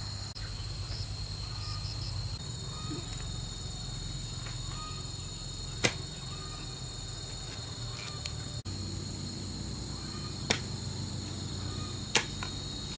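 Insects, such as crickets or cicadas, calling steadily in a high continuous drone, with three sharp knocks or clacks standing out in the second half.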